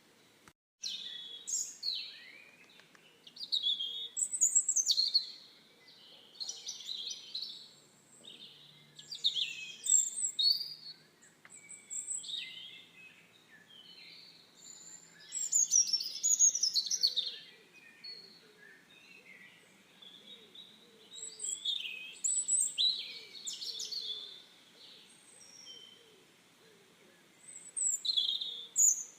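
Songbirds singing: a run of short, varied chirping and warbling phrases, one after another every second or two, high-pitched and overlapping in places.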